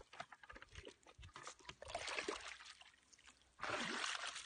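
Wet splashing and squelching in shallow muddy water, coming in irregular bursts, with a louder stretch of splashing starting near the end.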